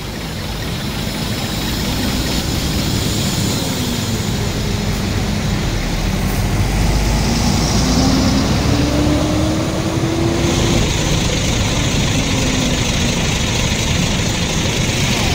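Large intercity coach's diesel engine pulling away and driving close past, a steady low rumble with the engine note climbing as it speeds up. It is loudest about eight seconds in, as the coach passes.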